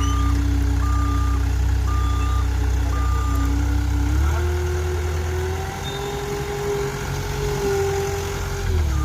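Hole-digger rig's engine running with its reversing alarm beeping about once a second. About four seconds in, the beeping stops and the engine speeds up and holds at higher revs for several seconds. Near the end, it drops back to idle.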